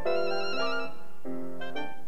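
Music: a clarinet playing a melody of held notes over other accompanying instruments.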